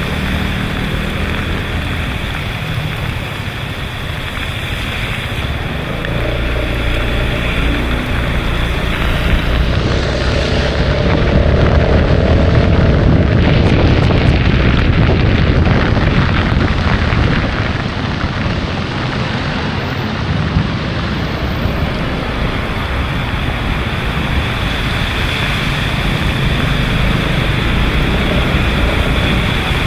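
Wind buffeting an action camera's microphone on a moving motor scooter, over low engine and road rumble. The rush swells louder for several seconds in the middle, then eases back.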